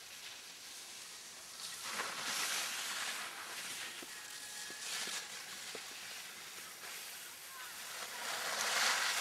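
Skis sliding on packed snow: a hissing scrape that swells and fades several times, loudest near the end.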